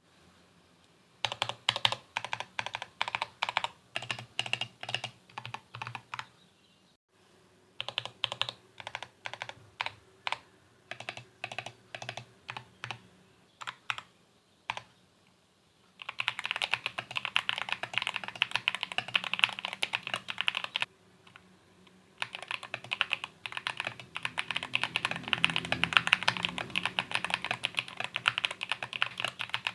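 Typing on an Apollo 61 mechanical keyboard with Outemu Jade White linear switches and PBT OEM-profile keycaps. Slow single keystrokes, about two a second, with a short pause near the middle, give way at about the halfway mark to fast continuous typing, which stops briefly once and then resumes.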